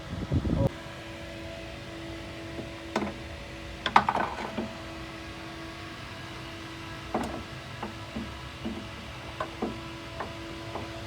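Metal tools and suspension parts clinking and knocking now and then during front lower control arm work, with a ringing clatter of clinks about four seconds in, over a steady hum. A short loud clattering scrape at the very start.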